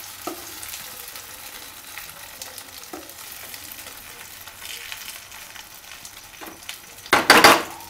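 Dhokla batter sizzling gently in hot oil in a nonstick kadai, a steady faint hiss with light scrapes as a steel spoon spreads the batter. A brief, much louder burst comes near the end.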